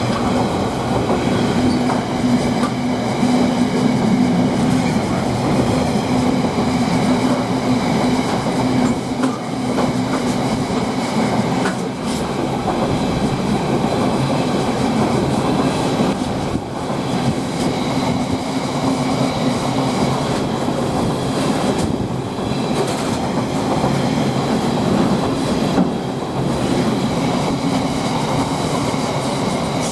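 Freight train hauled by a Class 66 diesel locomotive passing, its wagons rolling by in a long, steady rumble with clickety-clack from the wheels over rail joints and a held hum.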